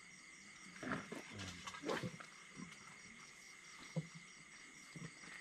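Crickets chirping steadily in a quiet background, with a few brief, soft low sounds about one and two seconds in and a short knock near four seconds.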